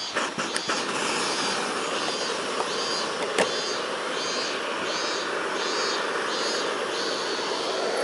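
Iwatani Junior Compact Burner, a butane cassette camping stove, burning with a steady rushing hiss once it catches at the very start, with a few clicks in the first second and one more partway through. A faint high call repeats about every second behind it.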